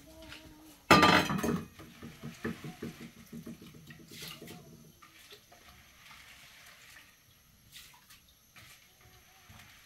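Water splashing into a vessel about a second in, followed by a few seconds of rapid gurgling, with faint clinks of kitchenware.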